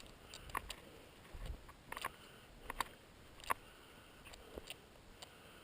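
Faint, irregular soft clicks and rustles of footsteps walking through grass, about eight in all.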